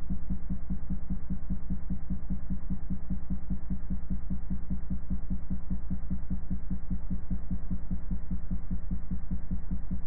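Low-pitched tone driving a water droplet on a cymatics vibration surface at one of its resonant frequencies, pulsing in a fast, even beat several times a second.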